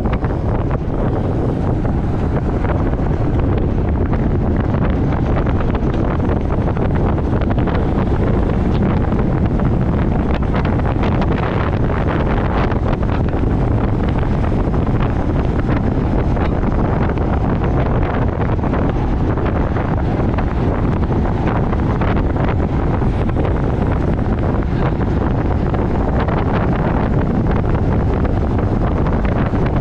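Steady wind noise on the microphone of a camera on a road bike descending at about 40 mph.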